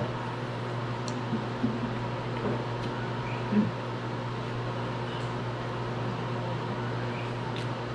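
A steady low hum fills the room while a fork makes a few faint clicks against a plate as the fried fish is picked apart. A brief low voice sound comes about three and a half seconds in.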